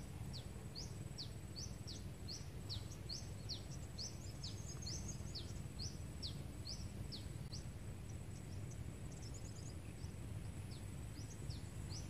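A small bird calling over and over in short high chirps, some sliding up and some sliding down, two or three a second, over a steady low outdoor rumble.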